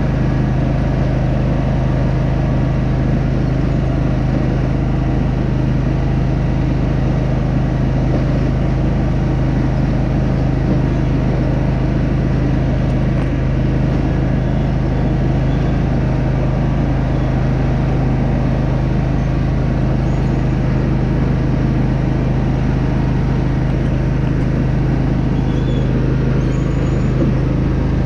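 Riding lawn mower's engine running steadily at a constant speed as the mower drives along, a continuous low drone.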